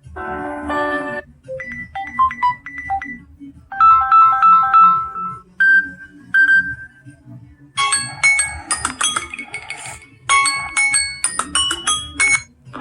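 Samsung Galaxy ringtones: a series of short electronic melodies of bright chime-like notes, each phrase a second or two long with brief gaps between them, ending in a busier run of high bell-like notes.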